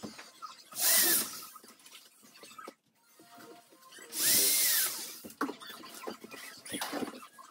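Power drill running in two short bursts, the first about a second in and a longer one about four seconds in, its motor whine rising and falling with each burst.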